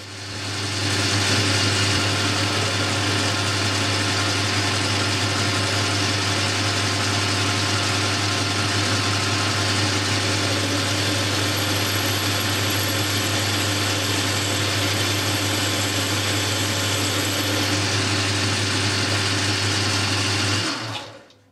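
Boxford metal lathe running under a turning cut, reducing the end of a thumb-screw blank toward 5 mm for a thread: a steady mechanical whir with a low motor hum. It builds up in the first second and dies away shortly before the end.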